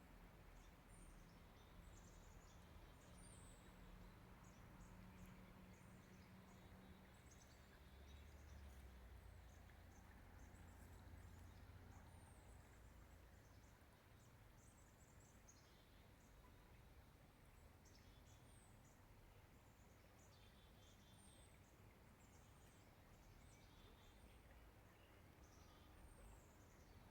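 Faint outdoor ambience of small birds giving many short, high, downward-sliding chirps, scattered irregularly over a low, steady rumble.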